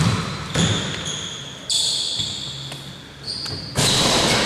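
Basketball bouncing on the court during live play, with a few thuds of the ball and high-pitched squeaks of shoes.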